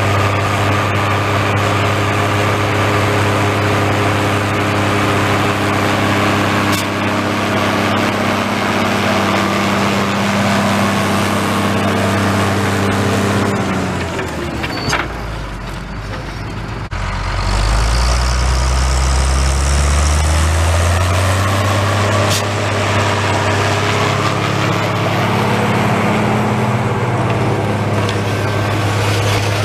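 Case IH 1455 XL tractor's six-cylinder diesel engine running steadily under load while pulling a plough through the soil. About halfway through, the sound drops briefly to a deep rumble, then the engine's pitch climbs over a few seconds and settles again.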